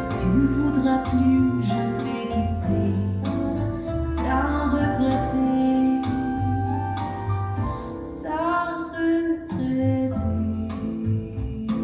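Jazz-pop song: a woman singing in French over bass and piano.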